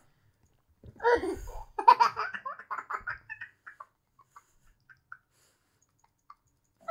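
A young child laughing: a run of quick giggles starting about a second in and lasting a couple of seconds, then trailing off into a few faint sounds.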